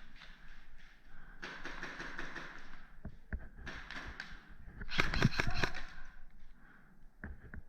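Airsoft guns firing in short rapid bursts of clicks, the loudest burst about five seconds in, then a few single shots near the end.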